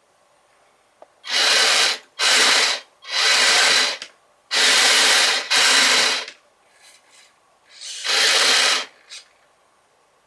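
Kyosho Blizzard FR radio-controlled tracked snow vehicle driven in about six short bursts, its drive train and tracks running with a noisy mechanical whir each time and stopping in between.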